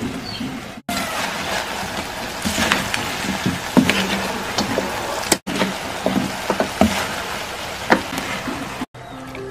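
Chicken feet adobo sizzling in a hot pan as kangkong (water spinach) leaves are added: a steady hiss with many sharp pops and crackles. The sound breaks off briefly three times.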